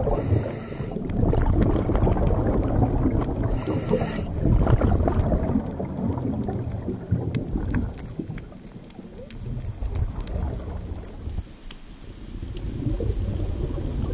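Underwater ambience picked up by a camera in its housing: a low, uneven rumble of water noise with scattered clicks, and two brief hissing rushes in the first few seconds.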